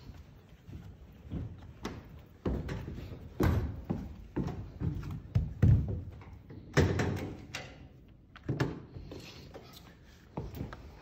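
Irregular thuds and knocks on retractable bleacher decking, from a worker's footsteps and the handling of the metal cover plates being set back down; the loudest knocks come a little past the middle.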